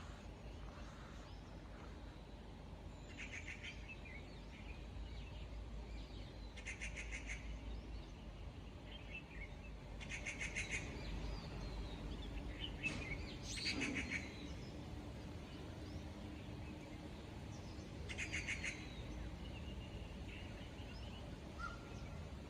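Wild birds calling: a short, rapid trill repeated about five times, every three to four seconds, with fainter chirps between and a steady low rumble underneath.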